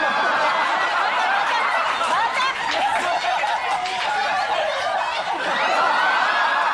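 A group of people laughing together, many voices overlapping without a break.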